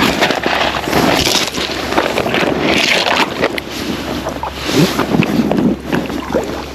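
Moving, sloshing water with wind buffeting the microphone.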